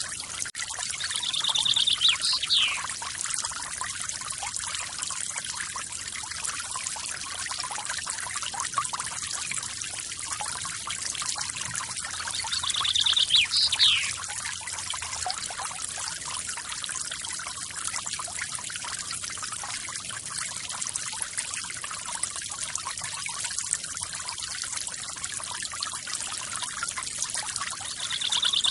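Small forest waterfall splashing and trickling steadily. A bird calls twice, about 2 seconds in and again about 13 seconds in, each time a short buzzy trill followed by a quick falling whistle.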